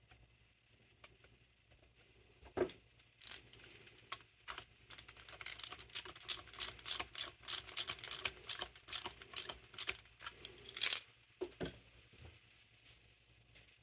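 Light, sharp metallic clicks at about three a second from small carburetor parts and hand tools being handled during assembly, with a single knock a few seconds in and a louder one near the end.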